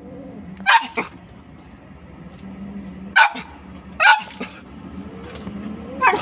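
Dog barking in about five short, sharp barks: two close together about a second in, then singles spaced out over the next few seconds.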